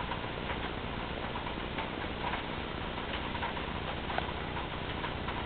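Steady rain falling, with scattered close drips tapping.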